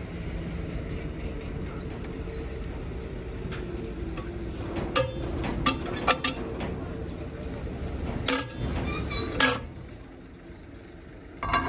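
Metal clanks of a wheel spanner and long extension pipe worked on the wheel nuts of a truck wheel: several sharp strikes about halfway through and a few more about two thirds of the way in, over a steady low rumble.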